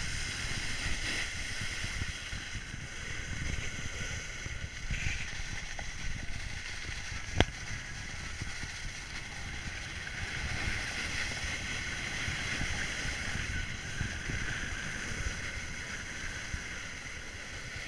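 Steady hiss and scrape of a rider sliding down packed snow on a groomed ski slope, with wind on the microphone. A single sharp click about halfway through.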